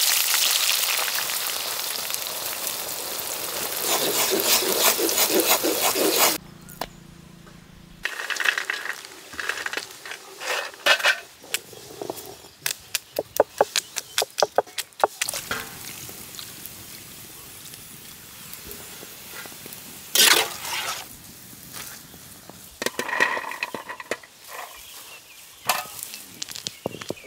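Chopped onions sizzling loudly as they fry in hot sesame oil. After a cut, cashew nuts and then peeled almonds are tipped onto a stone grinding slab, clattering in quick scattered clicks, with a short burst of noise between the two pours.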